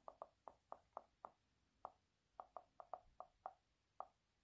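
A string of about fourteen faint, short clicks at an uneven pace, with a short pause a little past a second in, over near silence.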